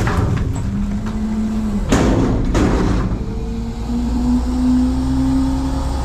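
Front-load garbage truck dumping a container into its hopper: bags of trash crash in with a couple of sharp knocks about two seconds in. Under them the diesel engine runs with a low drone, and the hydraulic system gives a steady whine that rises slightly in pitch over the second half.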